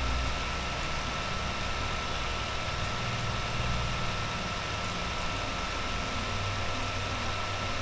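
Steady background hiss with a low hum and a thin, unchanging high whine.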